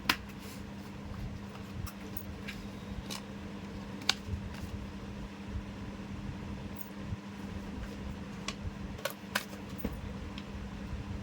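Scattered sharp clicks and light handling noises, as of a USB data cable and its packaging being handled, over a steady low electrical or fan hum.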